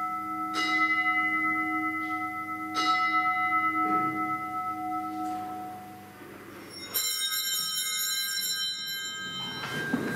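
Altar bells rung for the elevation at Mass. There are two strikes about two seconds apart, each ringing on with steady tones, then a brighter, higher jingling ring about seven seconds in that dies away.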